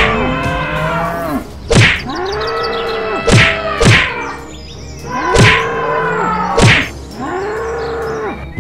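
Cartoon fight sound effects: about six hard whacks of blows landing, with four long mooing bull bellows between them, each rising then falling in pitch.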